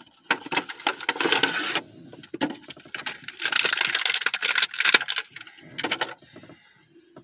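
Plastic toy packaging crinkling and crackling as an action figure is worked free of it, in several spells with sharp clicks and snaps.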